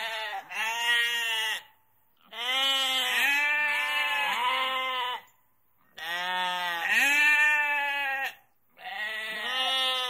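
Sheep and goats bleating. Wavering, arched calls come in four bursts, each several bleats run together, with short silent gaps between them.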